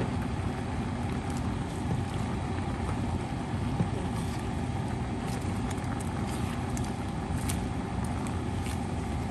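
Vegetables and beef being stirred in a wok with a spatula: scattered light clicks and scrapes of the utensil against the pan, with a sharper knock just before 4 seconds in, over a steady low rumbling cooking noise.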